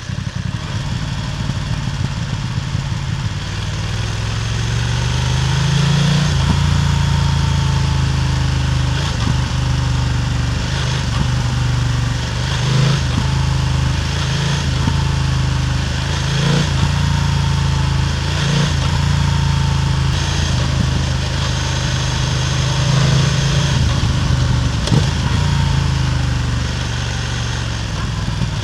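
BMW F900R parallel-twin motorcycle exhaust, heard close up while riding, running at fairly steady revs. The note briefly dips or breaks every couple of seconds.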